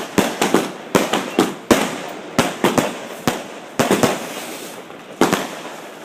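Multi-shot firework cakes firing: a quick, uneven string of sharp bangs with crackling between them, heard close to the launch site. The bangs thin out after about four seconds, with one more loud bang a little past five seconds.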